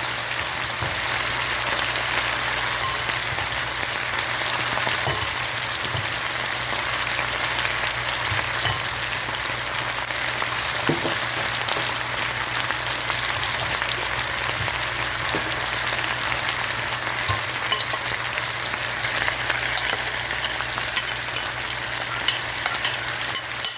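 Diced potatoes frying in hot bacon grease in a cast iron pot: a steady sizzle with many small crackling pops. A steady low hum runs underneath.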